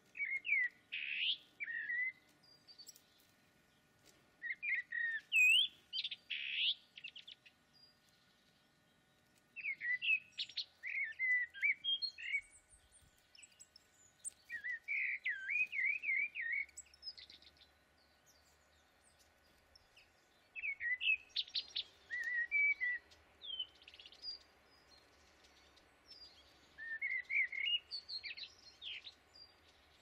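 Songbirds singing: bursts of quick, high chirping and twittering notes, each phrase lasting two to three seconds and coming back about every five seconds, six times.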